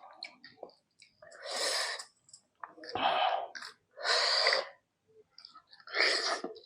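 Loud slurping and sucking at a mutton nalli bone to draw out the marrow: four long noisy slurps, each under a second, spaced about a second apart.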